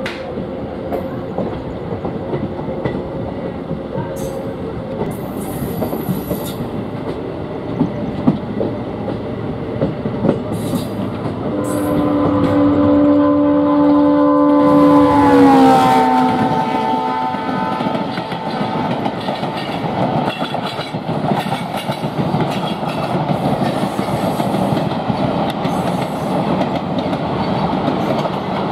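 Horn of twin WDG4 EMD diesel locomotives sounding one long chord as they rush past, the pitch dropping as they go by. Train rumble and wheel clatter run throughout, with the clatter of the passing coaches growing louder after the horn.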